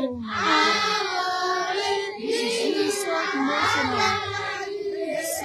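A group of voices singing together, many of them overlapping, some high-pitched.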